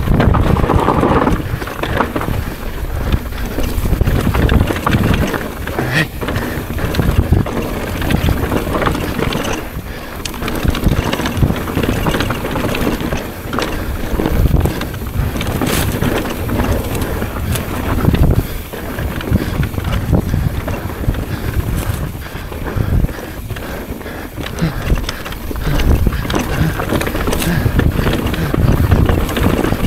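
Wind buffeting the microphone over a downhill mountain bike descending at speed: tyres on dirt and the bike rattling over rough ground, with many scattered knocks.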